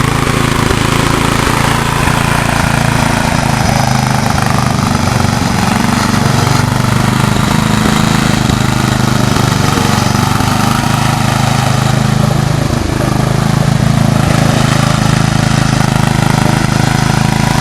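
Riding lawnmower engine running steadily at an even pitch.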